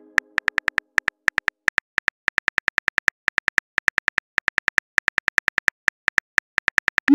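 Phone keyboard tap clicks from a texting animation, a steady run of short sharp ticks at about six a second as a message is typed out letter by letter.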